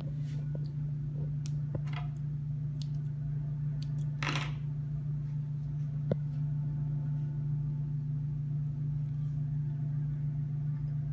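Steady low hum under hands threading an industrial sewing machine, with a few small clicks, a short rustle of thread being drawn about four seconds in, and a sharp click about six seconds in.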